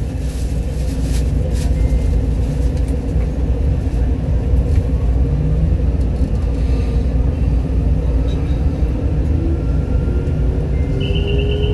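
MRT Line 3 train heard from inside the passenger car: a steady low rumble, with the traction motors' whine rising steadily in pitch over the last few seconds as the train pulls away from the station.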